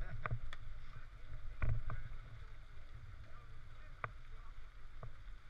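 Riding a mountain bike over a gravel track, heard through a helmet camera: a steady low rumble of wind and tyres, with about six sharp clicks and knocks scattered through it.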